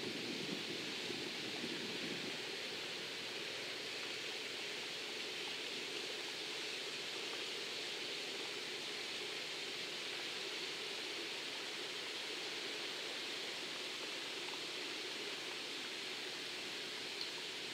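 Steady outdoor background hiss with no distinct event, and a low rumble fading out in the first two seconds.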